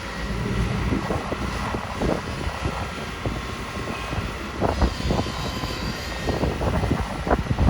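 Kobelco SK250 excavator's diesel engine running steadily under load, with scattered knocks and clatter, most of them in the second half.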